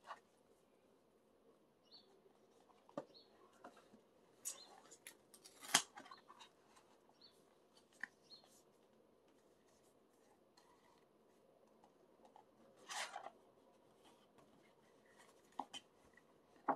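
Faint taps, clicks and rustles of a large cardboard album and photobook being handled and turned over in the hands, with a cluster of knocks about five to six seconds in and a longer rustle about thirteen seconds in.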